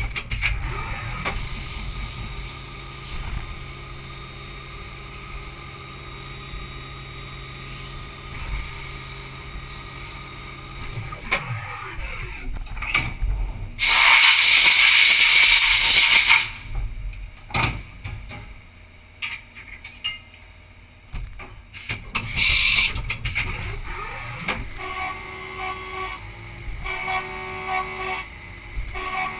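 Haas Super Mini Mill 2 CNC milling machine humming steadily between operations. About halfway through comes a loud hiss of compressed air lasting about two and a half seconds, as chips are blown off the vise. Near the end the machine runs again with a whine that pulses on and off as the spindle returns to the aluminium.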